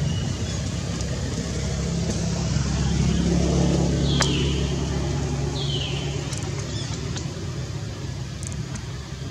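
A motor vehicle's engine running, a steady low rumble that swells about three seconds in and then slowly fades away. A couple of short, high, falling chirps sound over it around the middle.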